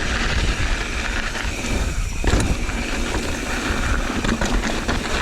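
Kona mountain bike rolling downhill over rocky trail: tyres crunching on rock and the bike rattling and knocking over the bumps, under the rumble of wind on the microphone.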